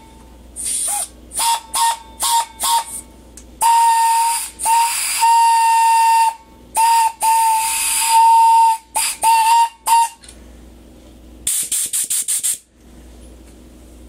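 A compressed-air horn sounds one high note in a string of short toots and two longer blasts, with a lot of air hissing out along with the note. The hiss comes from too much air leaking. Near the end come a few quick bursts of air hiss with no note.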